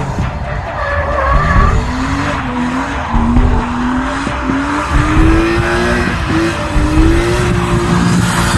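BMW coupe drift car sliding through a corner, its engine revving hard and its tyres squealing. The engine pitch rises in steps, with a couple of brief dips.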